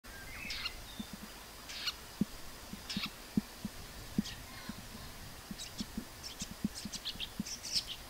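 Male red-backed shrike calling: short, sharp high notes about one a second, quickening into a rapid run of notes near the end. Short low pops are mixed in among them.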